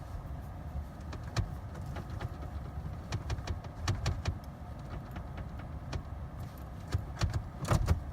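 Scattered sharp clicks and small knocks inside a car cabin over a steady low hum, the loudest cluster near the end. No engine cranks or starts.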